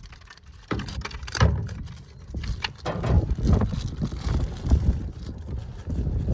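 Packaging being pulled off a new chainsaw by hand: irregular rustling, scraping and knocks, with a low rumble underneath.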